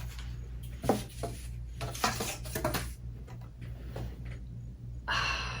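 Hard plastic graded comic slabs and packaging being handled: scattered light taps and clicks, with a short rustle near the end.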